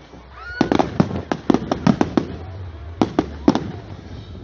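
Fireworks display: a fast, irregular string of sharp bangs going off in quick clusters, heavy in the bass.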